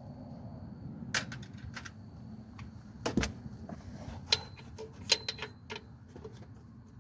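Metal hand tools clinking and clicking as they are handled: about a dozen sharp, separate clinks, the loudest about three seconds in and a quick cluster near five seconds, a few ringing briefly.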